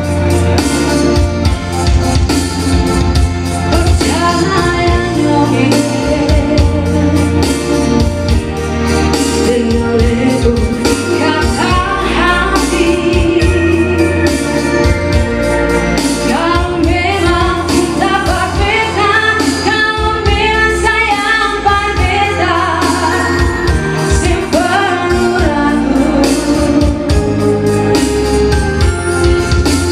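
A live band playing, with a woman singing into a microphone over the music through the middle of the stretch. A steady low bass pulse runs under it all.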